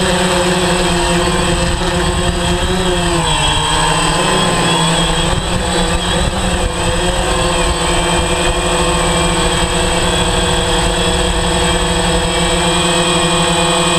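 DJI Phantom 3 quadcopter's motors and propellers running with a steady buzzing whine made of several tones together. The pitch dips and comes back up around four seconds in as the motors change speed.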